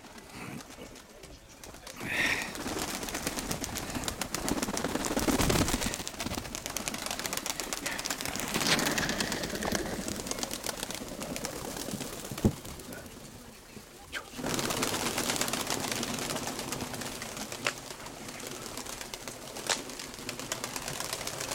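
Domestic pigeons cooing over a steady rushing noise with scattered fine clicks, and one sharp click about halfway through.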